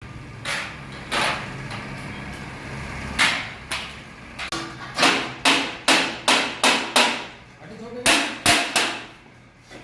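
A hammer striking metal, about a dozen sharp ringing blows with irregular gaps and a quick run of six in the middle, as in stainless-steel gate fabrication work.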